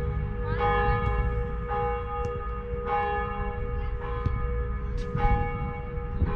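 Church bells ringing, a new stroke about every second with a steady hum ringing on underneath.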